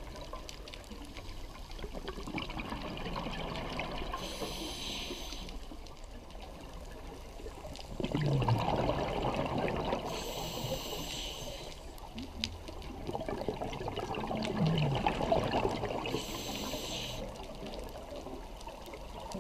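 A scuba diver breathing through a regulator underwater: three breaths about six seconds apart. Each is a hiss on the inhale followed by a louder bubbling rush of exhaled bubbles.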